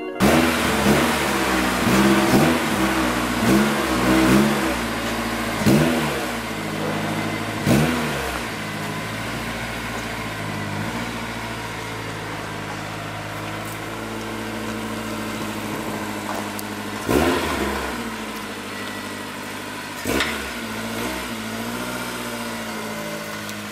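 Car engine revved in a run of quick blips, then running steadily, with two more sharp revs later.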